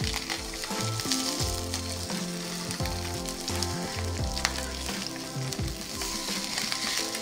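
Slices of Spam sizzling in oil in a frying pan, with a few sharp clicks as chopsticks turn them. Soft background music plays underneath.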